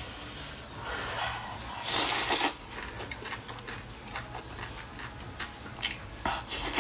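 A person slurping noodles, with one loud slurp about two seconds in, followed by short wet mouth clicks of chewing near the end.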